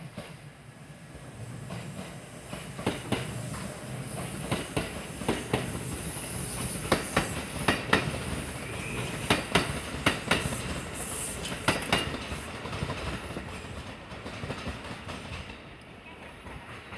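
Kintetsu electric train running over the station's turnouts and rail joints, its wheels clattering in a quick irregular run of sharp clicks. The sound builds to its loudest mid-way and then fades as the train moves off.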